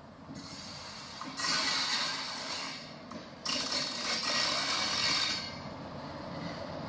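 Diesel railcar approaching and passing close by, its engine humming low and steady under loud rushing, hissing wheel-and-rail noise that comes in two long stretches, the second ending a little past halfway.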